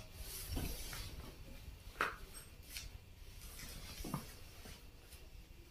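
Marker pen scratching and rubbing on chart paper as a poster is coloured in, with a couple of light knocks about two and four seconds in.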